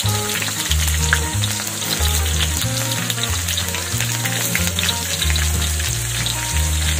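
Sliced ginger and shallots frying in hot oil in a wok: a steady sizzle with small crackles and pops. Background music with a low bass line plays along with it.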